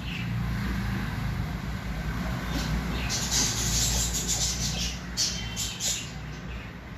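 Baby parrot eating a Marie biscuit: a run of short scratchy noises in the middle of the stretch, over a steady low hum.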